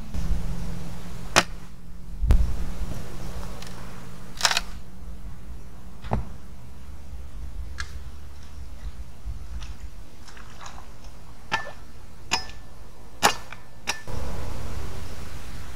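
Scattered sharp knocks of a machete chopping at a wooden pole, about eight strikes at uneven intervals, over a steady low wind rumble.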